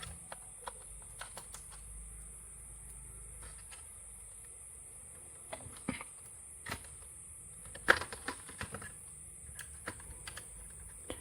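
Scattered small clicks and taps of an SSD and its mounting bracket being handled and lined up with the screw holes in a laptop's drive bay, the sharpest tap a little before the 8-second mark, over a faint steady high hiss.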